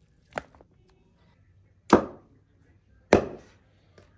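Three chops of a blade through turkey meat on a board: a lighter one, then two hard chops a little over a second apart, each with a short ringing tail.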